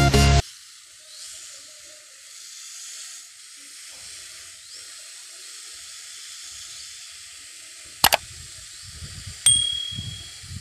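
Steady hiss of fine mist from a trigger spray nozzle on a 2-litre plastic bottle pressurised with compressed air. A sharp click comes about eight seconds in, and another with a brief ringing tone a second and a half later.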